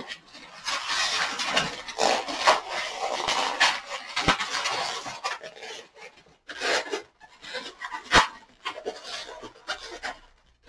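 Inflated pink 260 latex modelling balloon being twisted and handled: rubbery squeaking and rubbing in irregular bursts, with two sharp snaps, about four and eight seconds in.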